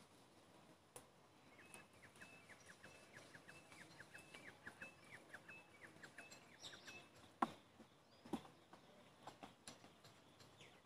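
Faint bird chirping: a quick series of short, falling chirps, about four a second, for several seconds. A single sharp click comes about seven and a half seconds in.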